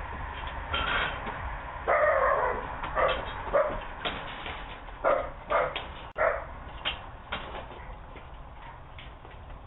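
A dog barking about six times in short bursts, heard through a doorbell camera's microphone with thin, muffled sound.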